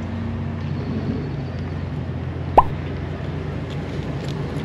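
A car engine running with a steady low hum. About halfway through, a single short, sharp chirp that rises quickly in pitch stands out above it.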